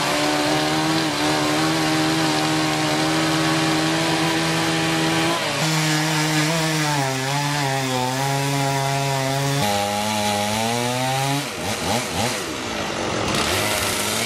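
An engine running fast at a held pitch, stepping down to a lower pitch about five and a half seconds in, climbing back up near ten seconds, then stopping about eleven and a half seconds in.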